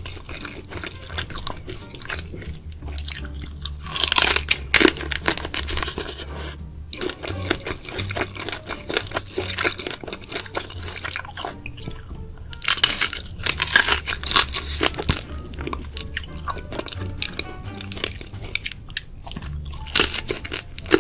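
Close-miked crunching and chewing of shell-on spicy seafood, with loud bursts of crackly crunching about four seconds in, again around thirteen seconds, and near the end, over background music.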